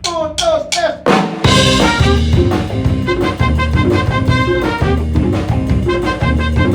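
Brass-led Afro-Latin funk band music with trumpet and drum kit. It opens with a few quick falling phrases, and about a second and a half in the full band comes in with a steady driving beat.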